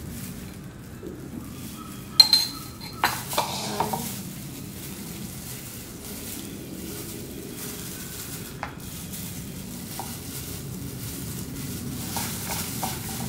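Kitchenware knocking and clinking: a sharp clink about two seconds in and a few knocks just after, as a glass spice jar and a ceramic mixing bowl are handled on the counter. A few light taps near the end, over a steady low background noise.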